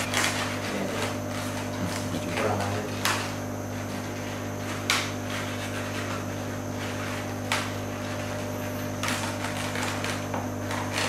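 Long latex modelling balloon being twisted and handled into a balloon dog: four short, sharp rubbing sounds of rubber stand out over a steady low electrical hum.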